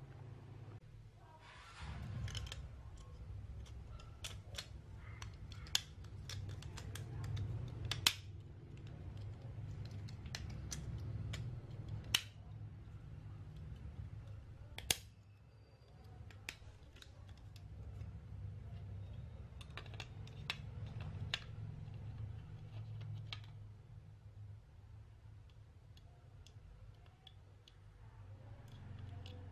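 Sharp, scattered clicks and taps of hard plastic as a computer mouse's shell and inner parts are handled and fitted together, over a steady low hum.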